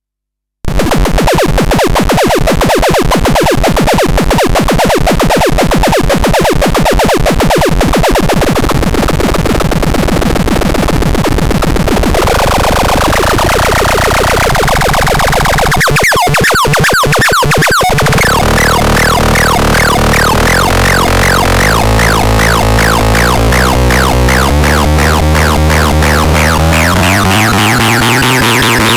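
Electronic synthesizer music with a fast, dense repeating pattern, starting about half a second in and changing chords as it goes.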